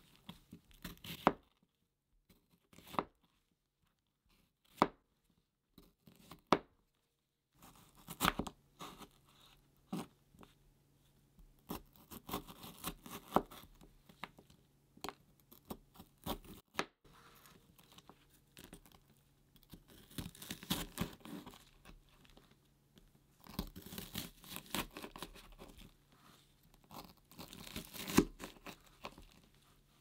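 Knife slicing a raw yellow bell pepper on a cutting board: crisp crunches of the firm flesh with knocks of the blade on the board. A few single cuts a couple of seconds apart at first, then quicker runs of slicing.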